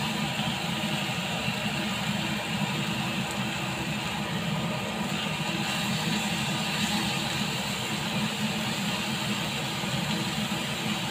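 Lamb chops sizzling steadily in a hot ridged grill pan, over an even low hum.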